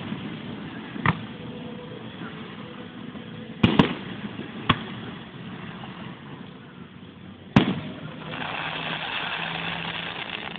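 Aerial fireworks shells bursting: a bang about a second in, a quick double bang near four seconds, another near five, and the loudest bang at about seven and a half seconds. A couple of seconds of hissing crackle follow as glittering stars burn out.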